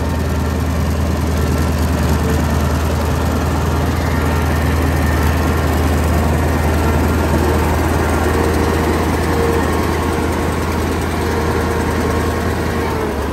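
Hino F21C 21-litre V8 diesel engine, naturally aspirated, of a tracked paddy-field tilling machine running steadily with a deep hum, getting a little louder through the middle.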